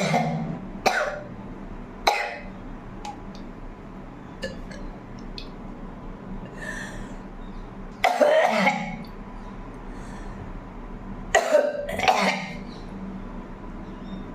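A woman coughing and hacking through a heavy cold: short harsh coughs about a second and two seconds in, a longer coughing fit about 8 s in, and two more close together near the end.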